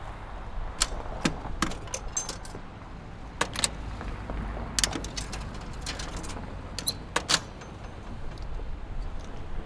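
Telephone handling noise: a run of irregular, sharp clicks and clacks, some in quick pairs, over a low steady rumble.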